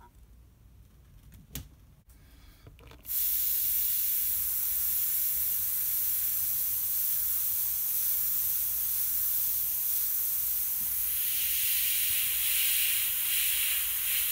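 Iwata Eclipse HP-CS gravity-feed airbrush spraying a test swatch of mixed paint: a steady hiss of air and paint that starts about three seconds in and grows a little brighter near the end. Before it, a couple of faint clicks.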